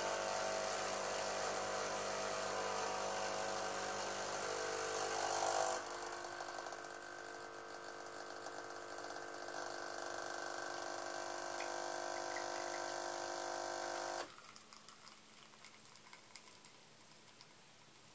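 Krups espresso machine's pump running steadily as a shot of espresso pulls. About six seconds in the hum drops a little and changes tone, and about fourteen seconds in it cuts off suddenly, ending a shot that is a bit too short.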